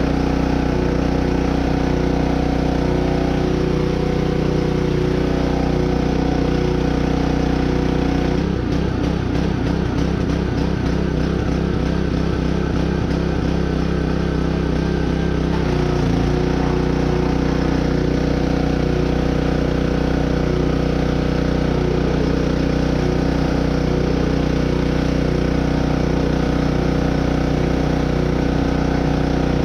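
An engine running steadily at idle. For several seconds about a third of the way in, its note turns uneven and pulsing, then settles back to a steady run.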